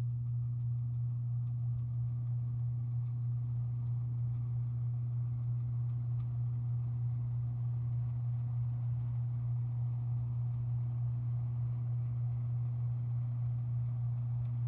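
Hampton Bay Littleton 42-inch ceiling fan running at speed, a steady low hum from its motor with a faint whoosh of moving air.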